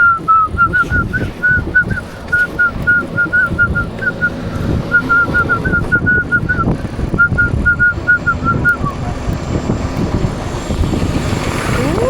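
Wind buffeting and road rumble from riding through the streets, with a quick run of short, high chirps, about four a second, that stops about nine seconds in. Near the end a high tone rises and then holds steady.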